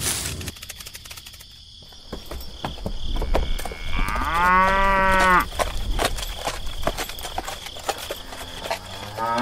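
A cow mooing: one long moo about four seconds in, and a second moo starting near the end.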